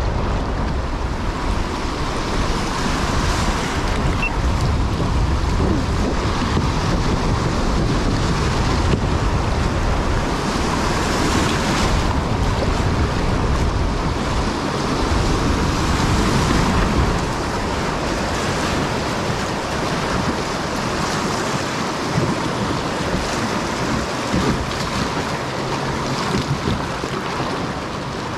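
River water rushing over shoals and riffles around a kayak, with wind buffeting the microphone; the low rumble eases about two-thirds of the way through as the water calms.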